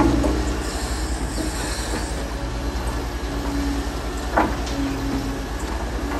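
Liebherr R940 Demolition tracked excavator at work: its diesel engine runs steadily under a hydraulic whine that comes and goes, with a sharp metallic clank at the start and another about four seconds in.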